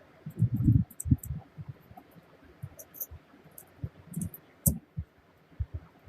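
Handling noise: irregular soft knocks and thumps mixed with sharp light clicks, heaviest about half a second in and again near the fifth second.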